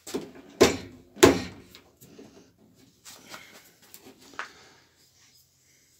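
Two sharp metallic knocks a little over half a second apart, about a second in, as a bent sheet-metal patch is handled against the car door's lower edge. Lighter taps and rustling follow, with one more small knock near the end.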